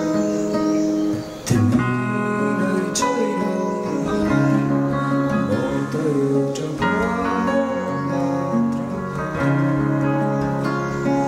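Two acoustic guitars and a keyboard playing a song together, with a man's voice singing over them; the music dips briefly and comes back in with a sharp new chord about a second and a half in.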